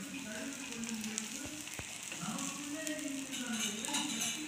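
Pearl-millet dosa batter sizzling on a hot nonstick tawa: a steady frying hiss with fine crackles, and a voice faintly in the background.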